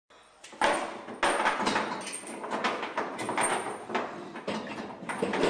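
Steel lifting chain rattling and clanking, with several sharp knocks, as a submersible sewage pump is lowered and handled on its chain inside a plastic pumping-station tank.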